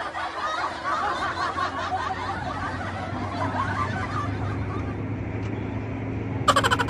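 Engine and tyre noise inside a car's cabin driving along an unpaved road, a steady low hum. Passengers chuckle softly over the first few seconds, and a short burst of rapid pulsing sound comes near the end.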